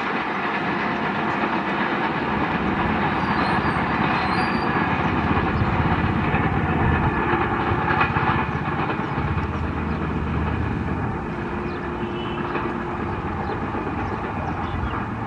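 Passenger express train's coaches rolling away along the track, a steady rumble of wheels on rails that eases off a little in the second half.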